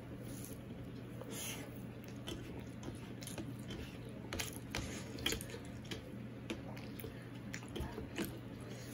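Fingers kneading and mixing rice with mashed cauliflower-leaf paste on a steel plate: soft, sticky squishing with many small irregular clicks.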